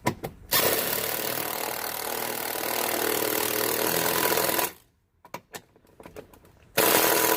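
Power impact driver running in bursts as it tightens the door check's bolts and nuts. One long run of about four seconds, a few light clicks, then a second short run near the end.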